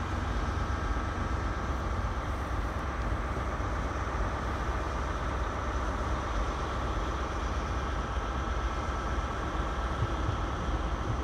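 Diesel multiple unit running as it approaches the platform: a steady low rumble with no sudden events.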